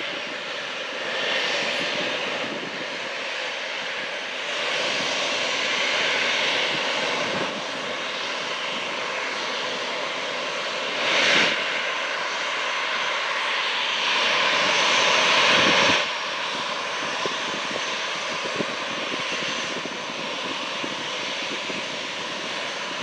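Aircraft engines running steadily, with several swells in loudness; the loudest stretch builds about fourteen seconds in and cuts off suddenly near sixteen seconds.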